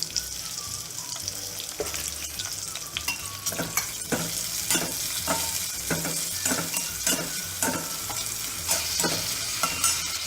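Sliced onions shallow-frying in a little hot oil, a steady sizzle, while a utensil stirs them, knocking and scraping against the pan about a dozen times.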